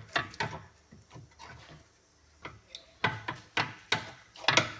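Worn suspension ball joint on a Mercedes-Benz W211 being rocked by hand, knocking and clicking in its socket from free play: a couple of knocks at the start, then a quicker run of knocks near the end. This play is the cause of the knock in the left front suspension.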